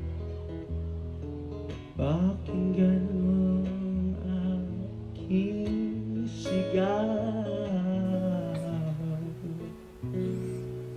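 A young male singer performing a Tagalog pop ballad live to his own strummed acoustic guitar. The guitar plays alone at first, and the voice comes in with a rising note about two seconds in, then sings long held notes over the chords.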